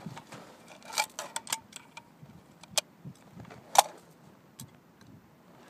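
Metallic clicks and clatter of rifles being handled, in a small cluster about a second in, then single clicks, the loudest a sharp clack a little under four seconds in.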